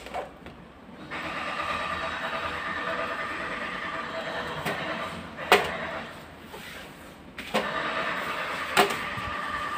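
A steady mechanical whir with a hum in it starts about a second in, stops for a moment after about six seconds, and starts again. Two sharp clicks stand out, one just before the pause and one near the end.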